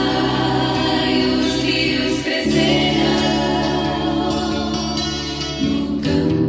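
Christian choral music with held chords, changing chord about two and a half seconds in and again near the end.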